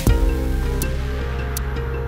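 Background electronic music: sustained chords with a deep bass hit that falls in pitch at the start and a few light percussion ticks.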